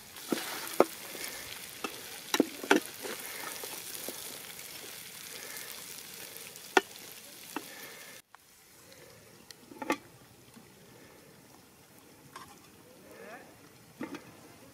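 Chicken curry sizzling in a large aluminium pot over a wood fire, with a metal ladle stirring it and knocking against the pot. About eight seconds in the sizzle cuts off, and a few metal clanks follow from the pot's lid and the ladle.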